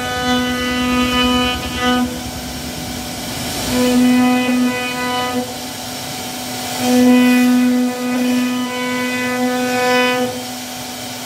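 CNC router spindle carving a scroll into a wooden panel, giving a steady whine at one fixed pitch that cuts out and returns every second or two, with rougher cutting noise in the gaps.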